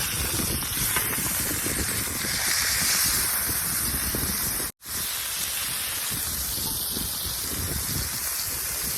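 Ground chuck burger patties frying on a hot pan, a steady sizzle, with a low rumble of wind on the microphone. The sound breaks off for an instant about halfway through.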